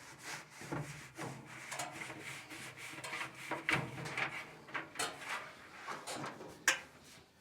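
Handling noises from dryer parts being worked on: irregular scraping, rubbing and light knocks, with one sharp click near the end.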